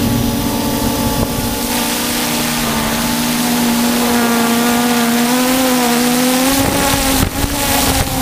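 Multirotor drone's electric motors and propellers humming steadily, heard through its own onboard camera, with wind rushing over the microphone. The pitch wavers slightly a few seconds in as the motors adjust.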